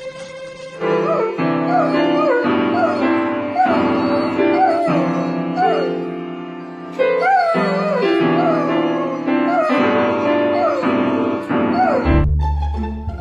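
Background music: a gliding, wavering melody over steady held chords, with a deep bass coming in near the end.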